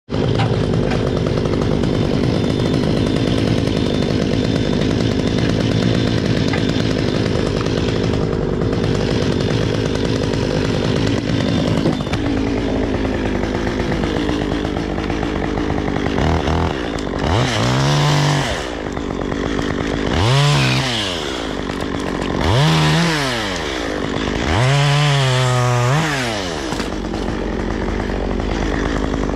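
Chainsaw running steadily at high revs for about twelve seconds, then dropping off and being revved up and let back down about five times.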